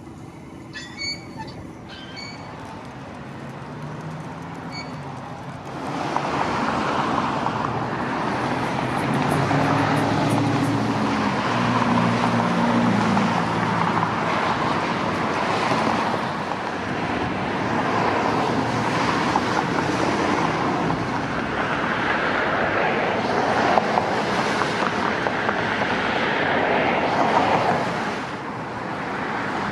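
Road traffic passing, quiet at first and then a steady, louder traffic noise from about six seconds in. One vehicle's engine note rises and falls around ten seconds in.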